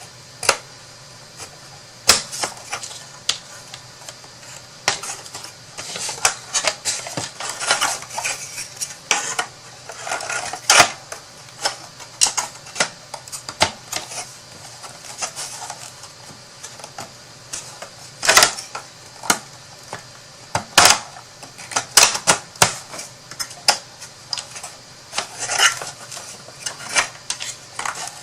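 Irregular light clicks, taps and rustles of cut pieces being handled and fitted together as a craft storage box is assembled by hand.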